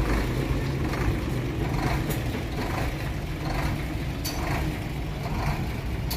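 A truck's engine running steadily with a low hum and no revving, and a few faint clicks about two seconds apart.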